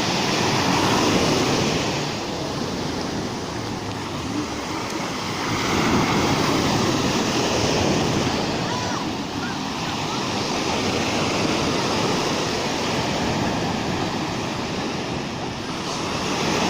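Surf of a rough sea breaking and washing on the shore: a steady rushing that swells and ebbs in surges several seconds apart.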